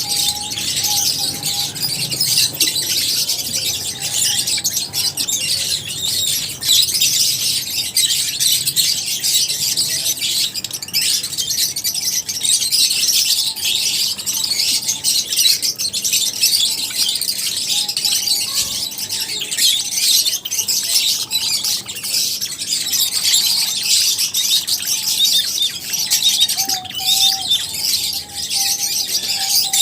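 Many lovebirds chirping at once: a dense, continuous chatter of high, sharp, overlapping calls.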